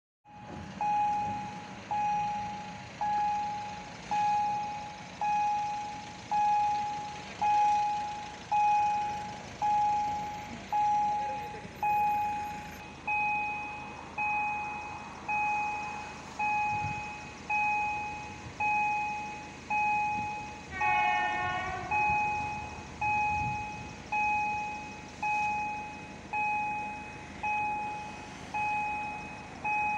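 Level-crossing warning bell ringing steadily, one clear stroke about once a second, each fading before the next. About two-thirds of the way through, the approaching EN63A electric train sounds its horn once, briefly.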